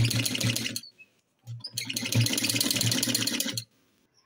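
Sewing machine stitching in two short runs, a rapid, even clatter of needle strokes. There is a short burst at the start, then a second run of about two seconds that stops a little before the end.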